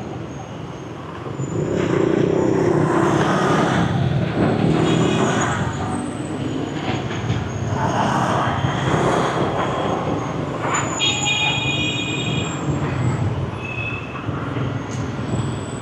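Busy city street traffic, with motorbikes and cars running past close by. A vehicle horn beeps a few times in the second half.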